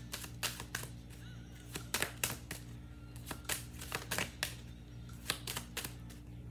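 A deck of tarot cards shuffled by hand, giving an irregular run of crisp card snaps, several a second, over faint steady background music.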